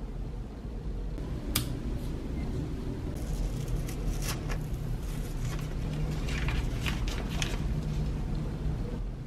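Thin paper wrapping crinkling and rustling as it is handled and unfolded from around a wooden rubber stamp: a single crackle about one and a half seconds in, then a run of rustles from about three to seven and a half seconds, over a steady low hum.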